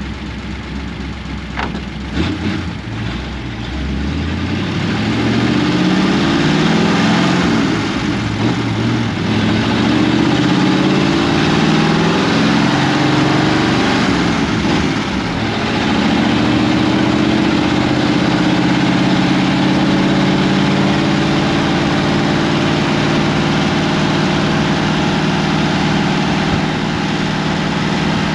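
Ford 59AB flathead V8 running through straight pipes, heard from inside the cab, pulling away with its pitch climbing. About halfway through the pitch drops back at a gear change, then the engine holds a steady cruise.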